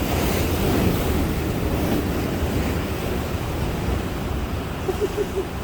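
Ocean surf washing in steadily, with wind buffeting the microphone as a low rumble.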